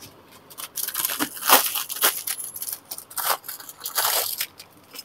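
Clear plastic bag holding a set of broad gold bangles, crinkling and rustling in a run of irregular bursts over about four seconds as it is handled.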